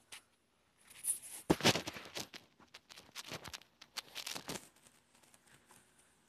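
Sneakered feet stomping and treading on other sneakers lying on a carpet: a few scuffs and stomps, the loudest cluster about a second and a half in, then more around three and four seconds in.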